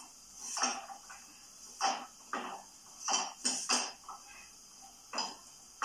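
Frying pan knocking and scraping on a gas hob's grate, about seven short irregular clanks, as dough is pressed out flat in it by hand.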